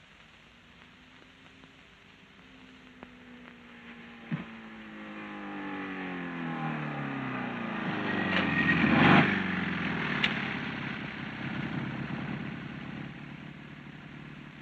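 Motorcycle engine approaching and slowing, its pitch falling as it draws near; it is loudest about nine seconds in, then runs on more quietly at a low, steady pitch as it pulls up.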